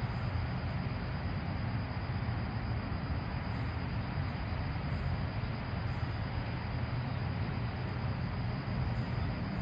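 Steady low rumble with a fainter hiss above it, unchanging throughout, with no distinct clicks or other events.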